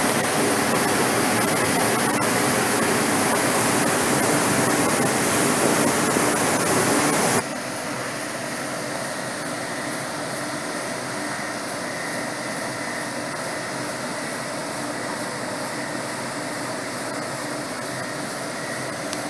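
Steady, loud rush of air from a grain dryer's fans and cyclone separators. About seven seconds in it drops suddenly to a quieter, even machinery hum with faint steady tones.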